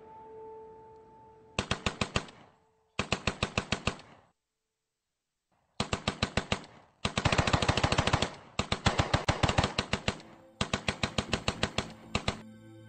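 Automatic machine-gun fire, about ten shots a second, in bursts of one to one and a half seconds separated by short pauses. One longer silent gap falls a little after four seconds in.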